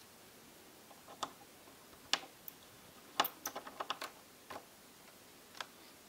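Small sharp clicks and taps of a screwdriver and plastic parts as a laptop's speaker assembly is worked loose, scattered single clicks with a quick run of about eight clicks around three to four seconds in.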